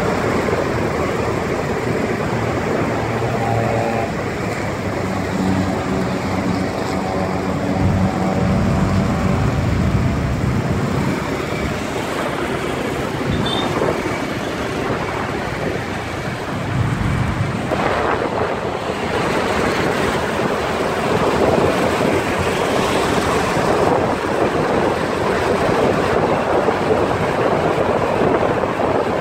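City road traffic heard from a moving vehicle: a steady rush of engines and tyres with wind buffeting the microphone. A nearby engine's hum stands out a few seconds in, and a louder passing swell comes about eighteen seconds in.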